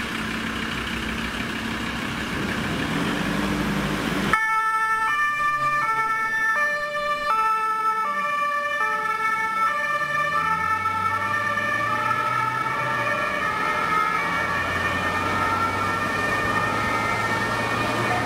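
A vehicle engine runs for the first few seconds. Then a German two-tone ambulance siren (Martinshorn) sounds suddenly, alternating between a high and a low tone about every half second. A low engine hum runs under the siren in the later part.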